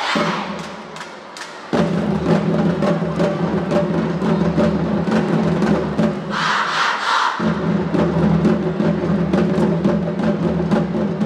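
Cheer-band drums beating a steady, fast rhythm over a held low tone, starting after a soft lull of about a second and a half. Around the middle comes a short shout from the massed cheering section.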